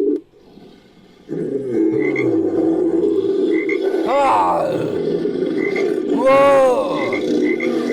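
Creature sound effect made from frog recordings: a steady, dense low frog chorus with small repeating chirps, starting after a second of near silence. Two loud calls rise and fall in pitch over it, about four seconds in and again about six and a half seconds in.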